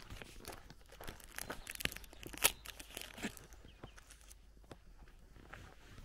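Footsteps crunching on a gravel and dirt lane, irregular, with one louder crunch about two and a half seconds in.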